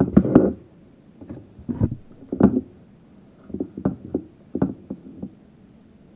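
Irregular knocks and clicks of things being handled and set down on a work surface, a dozen or so spread over about five seconds, loudest at the very start.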